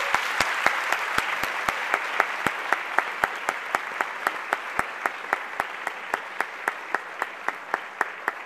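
Audience applause in a hall, slowly easing off, with one person close to the microphone clapping steadily about four times a second, louder than the rest.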